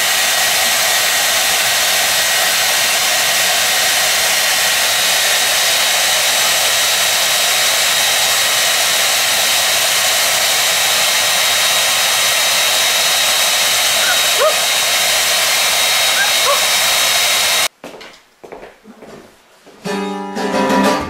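Hand-held electric hair dryer running with a steady blowing hiss, cutting off suddenly near the end. After it, an acoustic guitar sounds briefly.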